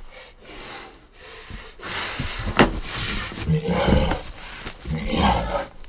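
A person breathing hard and grunting with effort in rough bursts, with one sharp knock about two and a half seconds in.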